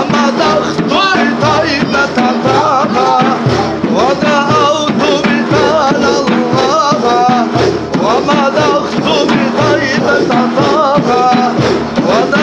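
Men singing a Sufi zikr hymn together in an ornamented, wavering melody over a steady low beat.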